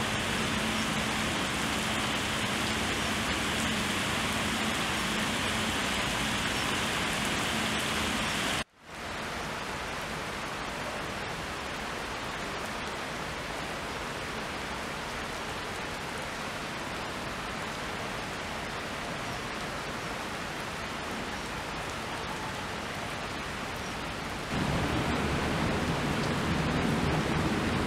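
Steady rain falling on wet asphalt, a constant hiss. About nine seconds in it cuts out for a moment and returns quieter, with fine drop ticks. It turns louder and deeper again near the end.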